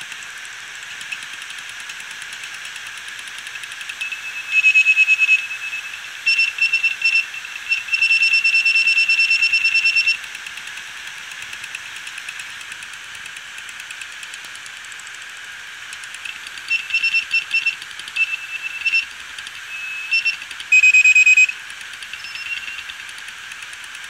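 Seagate Barracuda 7200.11 hard drive running with its cover off: a steady hiss from the spinning platters, broken by bursts of a high-pitched squealing tone. The bursts come in two spells, some short and chirping in quick runs, some held for a second or two, the loudest near the end. The drive is already dead from the SD15 firmware fault and doesn't like running uncovered.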